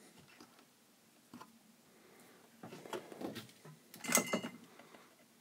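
Handling sounds at a workbench while wires are prepared for soldering: light rustles and small knocks, then a louder clatter about four seconds in.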